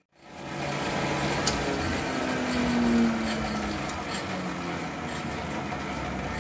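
Warco WM250V metal lathe running with a large faceplate and clamped workpiece spinning on the spindle, a steady machine noise that starts after a brief silence. About two to three seconds in, a tone falls slightly in pitch as the noise peaks, then the running settles a little quieter.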